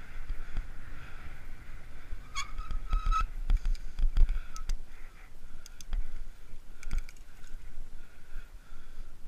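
Bicycle braking hard: a brief brake squeal rising slightly in pitch about two and a half seconds in, over wind and tyre rumble on the paved path. Scattered ticking clicks follow as the bike coasts at lower speed.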